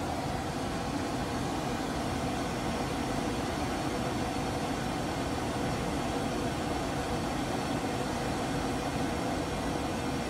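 Pink noise test signal played through a Tesla Model 3's stock speakers, a steady unchanging hiss from low bass to treble, used for an RTA frequency-response measurement of the car's audio.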